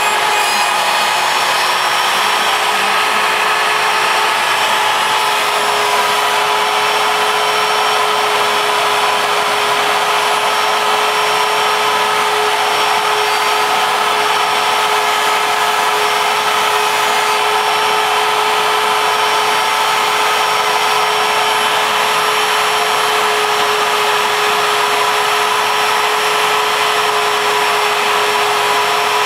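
ShapeOko CNC mill's router spindle running steadily with a high whine as its bit cuts through MDF, with a vacuum drawing the sawdust off through the hose.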